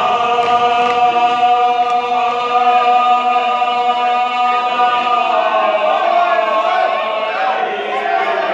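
A small group of men chanting a marsiya, an Urdu mourning elegy, together and without instruments. They hold one long note for about five seconds, then the melody wavers and moves on.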